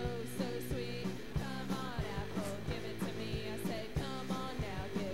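Rock music playing, with a steady drum beat and guitar.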